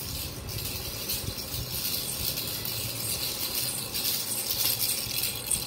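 A baby's plastic rattle toy being shaken, rattling over and over.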